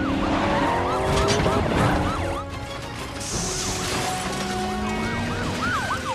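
Several police sirens yelping together in quick rising-and-falling cycles over car engines during a chase, with a few sharp crashes in the first two seconds and a brief high hiss about three seconds in.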